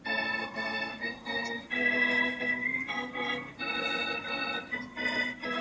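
Instrumental intro of a children's song: an organ-like keyboard playing sustained chords that change every half second to a second.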